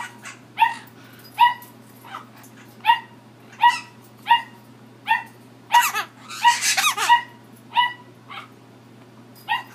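A dog coughing over and over: short, squeaky coughs about once a second, with a longer run of coughs a little past halfway. The owner wonders whether he is a little congested.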